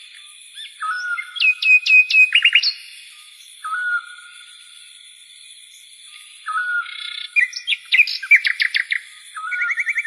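Birds chirping: a short rising call repeated about four times, and two runs of quick, high descending chirps, over a steady high-pitched whine.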